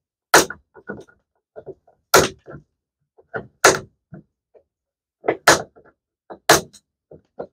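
Wire cutters snipping the protruding ends off metal hot wire staples set into a cracked plastic shell, one at a time: a sharp snap every second or so, with fainter ticks between.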